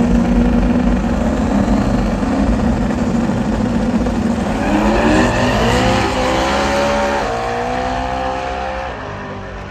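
Modified pickup truck engine running loud and steady, then revving hard about halfway in and held at high revs with a step down in pitch, fading near the end. This is a truck doing a burnout.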